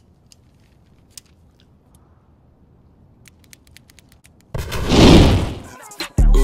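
Quiet stretch with a few faint clicks, then a loud whoosh-like rush of noise that swells and fades over about a second, followed by a sudden deep thump at the very end, likely an edited transition into music.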